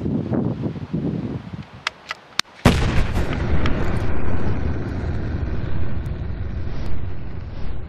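Outro sound effect: a few sharp clicks, then a sudden loud gunshot-like boom about two and a half seconds in, trailing into a long rumble.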